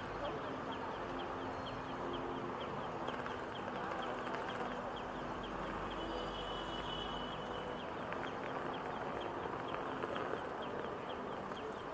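Steady city street noise of passing traffic and crowd, with a pedestrian crossing's audible signal ticking rapidly, about four times a second. A brief high tone sounds about six seconds in.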